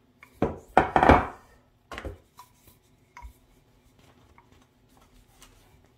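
Knocks and taps on a kitchen work surface as bread dough is pressed flat: a loud cluster of knocks in the first second or so, then a few lighter single taps.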